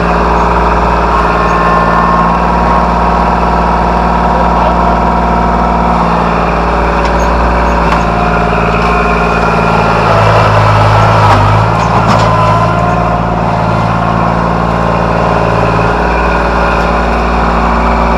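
Tractor engine running steadily while digging with its bucket, its low note growing stronger and louder for a couple of seconds about ten seconds in.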